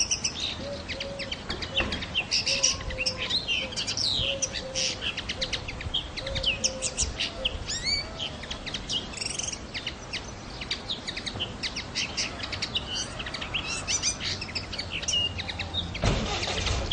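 A songbird singing a fast, varied twittering song of high chirps, trills and rising notes. A softer, lower repeated note sounds beneath it in the first half, and there is a brief rush of noise near the end.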